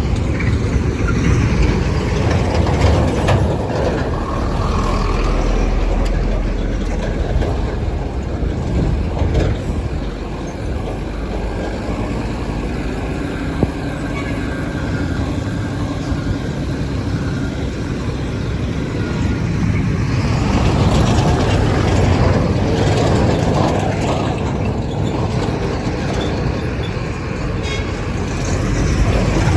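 Heavy trucks running past close by: a loud, continuous rumble of diesel engines and tyres that eases off midway and builds again near the end.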